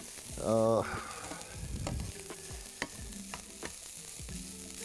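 Ground beef frying and sizzling in a stainless steel pan as it browns, stirred with a metal utensil that clicks and scrapes against the pan now and then. About half a second in there is a short voiced sound, like a brief hum.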